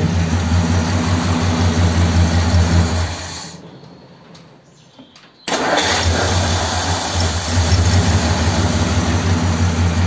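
1957 Ford Thunderbird's Y-block V8 running, then stopping about three seconds in and dying away. About two seconds later it is restarted and catches at once, running again. The owner suspects it runs lean on its original carburettor parts and hears it coming and going.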